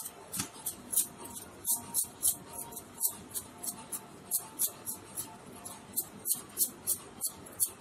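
Stacked bangles on a wrist clinking in a steady rhythm, about three short, bright jingles a second, as the hands roll a sticky coconut ball back and forth between the palms.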